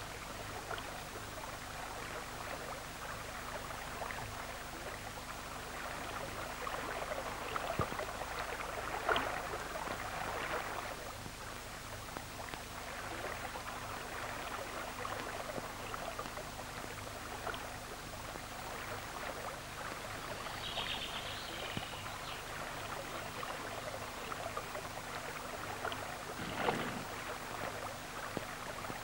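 Fast, rocky river water rushing steadily over stones, under a steady low hum, with two brief louder swells, one about nine seconds in and one near the end.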